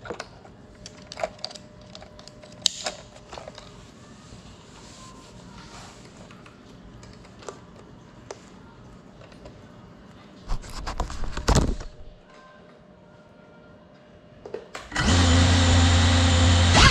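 Clicks and handling noises from the radio controller's switches and sticks, a short rushing burst in the middle, then about fifteen seconds in the brushless motors of a Geprc cinewhoop FPV drone spin up to a loud, steady whir, heard very close through the drone's onboard GoPro as it lifts off.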